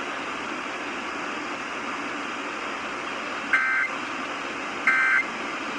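Dead air with steady AM radio hiss, then two short warbling Emergency Alert System SAME data bursts about a second and a half apart, near the end: the end-of-message code of an EAS test whose message was cut off.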